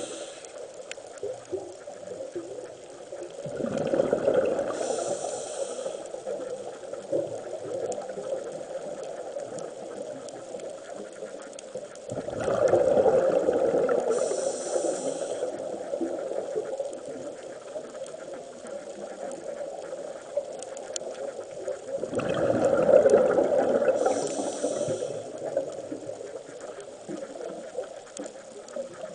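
Scuba regulator breathing underwater: a loud rush of exhaled bubbles with a hiss on the in-breath, three times, about every nine to ten seconds, over a low steady hiss.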